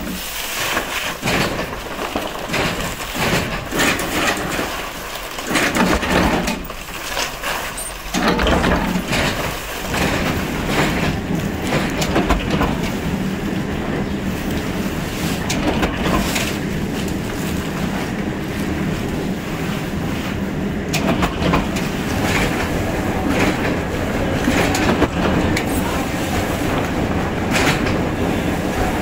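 Plywood mill machinery running: a steady low hum under irregular clacking and rattling. It comes in bursts with short lulls at first and runs continuously after about eight seconds.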